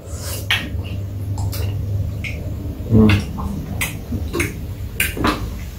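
Metal spoons scraping and clicking against rock-hard frozen ice cream in a paper tub, a run of short irregular scrapes and taps over a low steady hum, with a brief duller thump about three seconds in. The ice cream is frozen so hard that the spoons have to dig at it.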